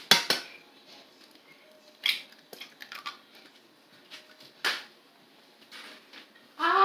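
An egg cracked against the rim of a pot: one sharp crack right at the start, then a few lighter knocks and taps over the next few seconds.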